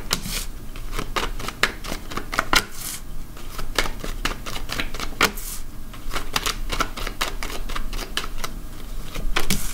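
A deck of tarot cards being shuffled and dealt by hand: a rapid, irregular run of crisp card clicks and flicks, with cards set down on a table one after another.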